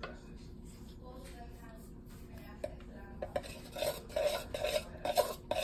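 A utensil stirring slime mixture in a plastic bowl, with short scrapes and clicks against the bowl. It is quiet at first, then the strokes come several a second from about two and a half seconds in.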